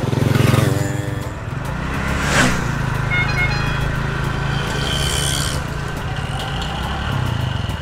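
A small motorcycle engine running steadily as the bike rides along the road, under background music.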